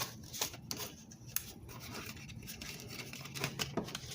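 Stiff plastic packaging being cut and pried open by hand: scattered short snips, clicks and crinkles.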